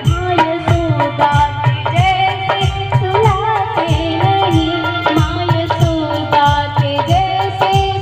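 A woman singing a devotional song into a microphone, a melodic line held and bent in pitch, over drums keeping a steady beat of about two to three strokes a second.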